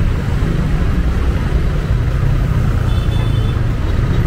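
Steady low rumble of street traffic, with a brief faint high tone about three seconds in.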